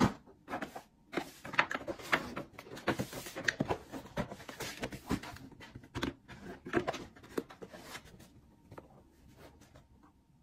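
Hermès paper shopping bag and cardboard shoe box being handled and opened: a busy run of paper crinkles, taps and scrapes with tissue paper rustling, thinning out near the end.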